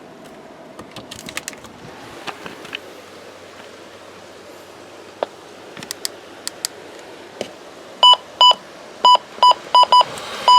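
Faint clicks and taps of handling, then from about eight seconds in a run of short, high electronic beeps at uneven intervals, like key-press beeps from a device being switched on and set up.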